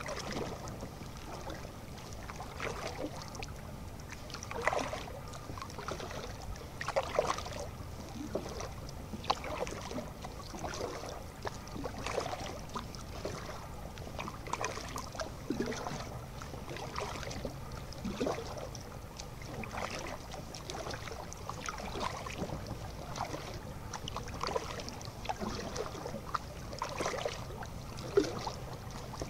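Kayak paddle blades dipping and pulling through calm canal water, a short splash about every two seconds, with water dripping off the blades.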